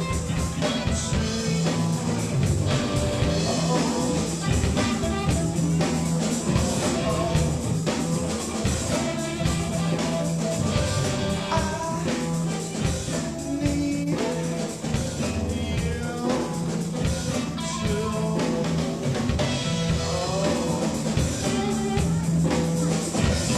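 Live rock band playing a song, with drum kit and guitar.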